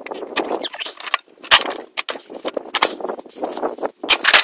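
Irregular metallic clinking and rattling of tools and mower parts being handled on a ride-on mower. Sharper clanks come about a second and a half in and again near the end.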